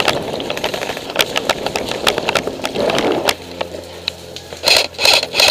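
Footsteps of a person moving quickly over dry leaf litter, a rapid irregular crunching that stops about three seconds in. Near the end come three short, loud bursts of noise.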